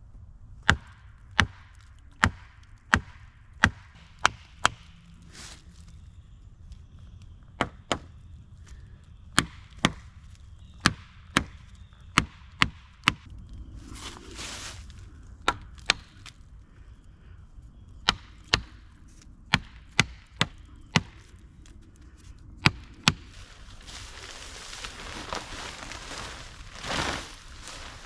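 Wood being chopped with an edged hand tool: sharp blows in runs of two to seven, about one to two a second, with pauses between. A rustling hiss takes over for the last few seconds.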